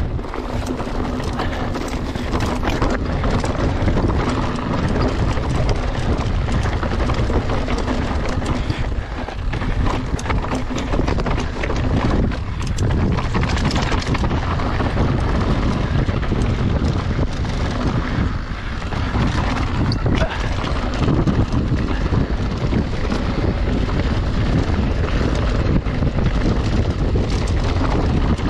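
Mountain bike descending rocky singletrack: tyres crunching over loose stones and the bike rattling with constant small knocks over the bumps, under heavy wind buffeting on the microphone.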